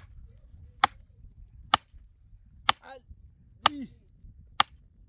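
Iron sledgehammer striking the top of a wooden stake, driving it into the ground: a run of sharp knocks, one a little under every second.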